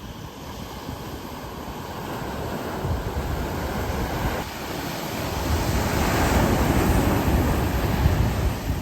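Ocean surf, a wave swelling and washing in, loudest a little past the middle, with wind buffeting the microphone.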